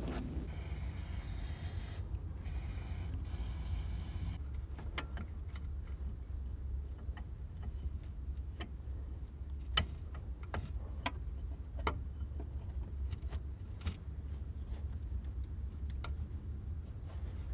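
Silicone lubricant aerosol spraying in two bursts of about two seconds each onto a new rubber anti-roll bar bushing, followed by scattered light clicks and knocks as the clamp bracket is fitted back over it.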